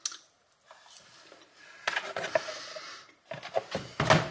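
Eating from a polystyrene takeaway box: chewing a bite of fried chicken while the foam box is handled, with short clicks and knocks that are loudest near the end.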